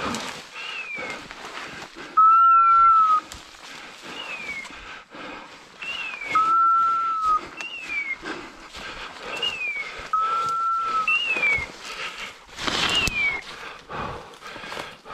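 A hunting dog's beeper collar chirping, a short falling note about every two seconds. Three long, loud, steady whistle notes sound about four seconds apart, over the rustle of brush and footsteps.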